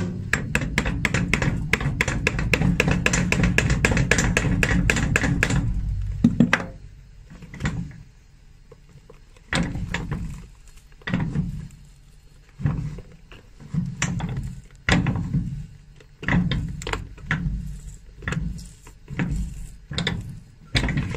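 Hand tools breaking down the old heel block of a worn leather shoe: about six seconds of rapid rattling scraping against the sole, then a string of knocks and prying sounds roughly once a second as the heel block is levered off.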